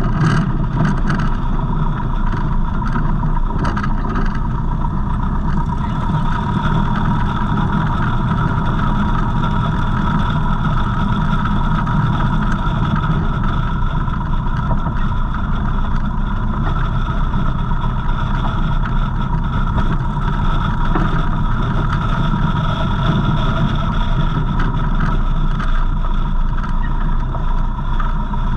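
A Savage Outback light bush plane's engine and propeller running at a steady, low power setting as the plane taxis over grass.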